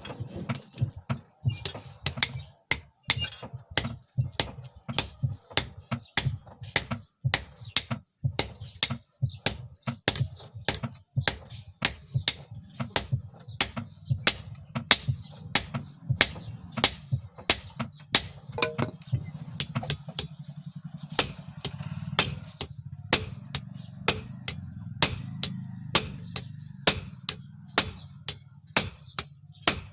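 Hand hammer striking steel on an anvil, forging an old file into a knife blade: sharp, evenly paced blows about two to three a second, over a steady low hum.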